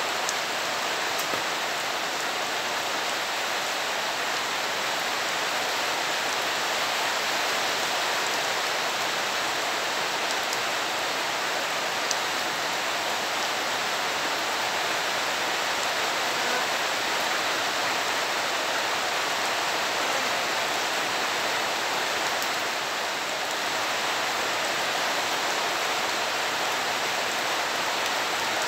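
Steady rain falling on wet ground and puddles: an even hiss that holds level throughout, with a couple of faint sharp ticks.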